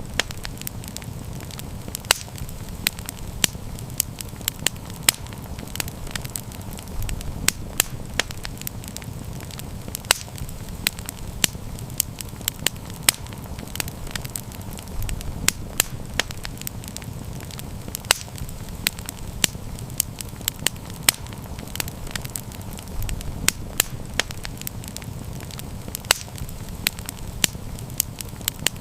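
Wood campfire burning with irregular sharp crackles and pops several times a second, over a steady low rumble of the flames.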